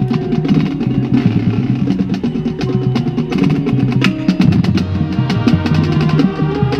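Marching band playing: held brass chords with the drumline striking snare and bass drums throughout.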